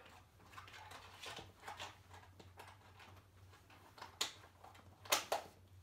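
Laptop keys clicking: a few faint taps, then three sharp clicks in the last two seconds, the last two close together, over a quiet room's steady low hum.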